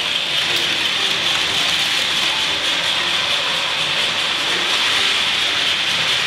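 Battery-powered Plarail toy trains (100 series Shinkansen models) running on plastic track: the steady, high-pitched whir of their small electric motors and gearing.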